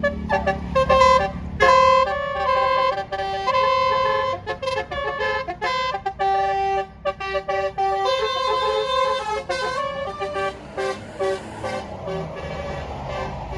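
A bus's basuri musical air horn playing a tune: a quick run of short and held horn notes stepping up and down in pitch, over the low rumble of an engine.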